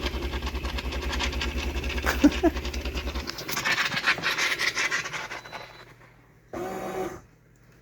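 Fully automatic espresso machine running an unprompted cycle: its pump buzzes with a rapid, even pulse for about three seconds, then stops and gives way to a hiss that fades out. A short pitched sound comes near the end.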